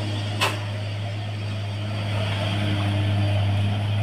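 Heavy truck's diesel engine running with a steady low hum, growing a little louder from about two seconds in. A single brief sharp snap sounds about half a second in.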